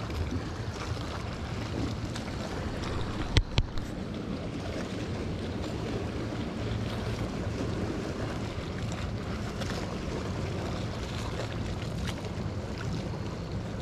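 Steady wind noise on the microphone over choppy water lapping, with two sharp knocks about three and a half seconds in.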